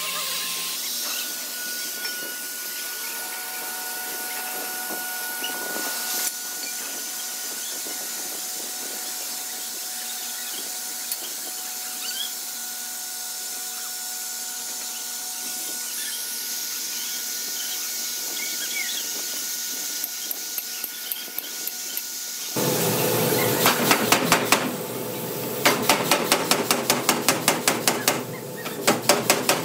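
Steady workshop hiss with faint steady tones. Then, about three-quarters of the way through, hammering on steel starts suddenly: rapid, evenly spaced blows about five a second, much louder than what came before.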